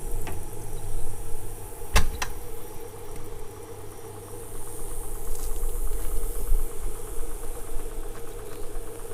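Motor vehicle engine running steadily, with a sharp double knock about two seconds in.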